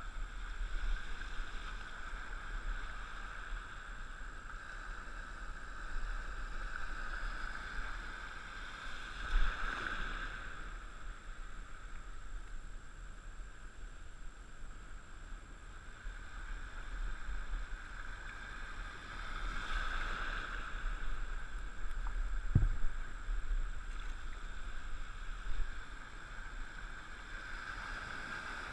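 Seawater washing in at the shoreline, swelling about every ten seconds, with a low rumble of wind on the microphone. A single short thump comes about three-quarters of the way through.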